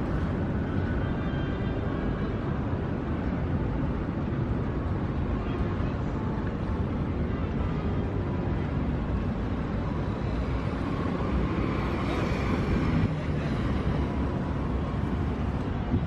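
Steady low outdoor rumble of wind on the microphone and distant vehicle noise, with no single event standing out.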